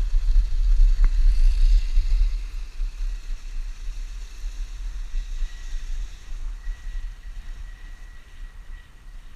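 Wind rumbling on the microphone of a moving dog sled, with a steady hiss over it; the rumble is strongest for the first two seconds and then eases. A single click about a second in.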